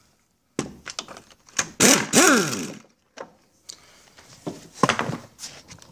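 Impact wrench run briefly on a powerhead mounting bolt: a short burst of rattling, then the motor's whine rising and winding down, followed by a few light metal clicks and knocks.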